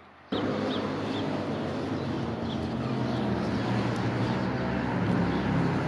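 Steady outdoor background noise with a low hum, starting suddenly about a third of a second in, with short high bird chirps every second or so.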